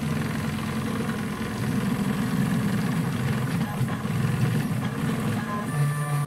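FDM 3D printer at work, its stepper motors whirring in quickly shifting pitches as the print head moves around the part, over a steady hiss. Near the end the motors hold one steady tone for a moment, then the sound cuts off suddenly.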